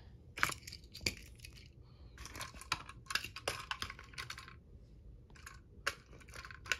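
Light plastic clicks, taps and rattles as small model train and toy pieces are handled and set down. A cluster of quick ticks falls in the middle, and a few sharper single clicks come about half a second in, at one second and near the end.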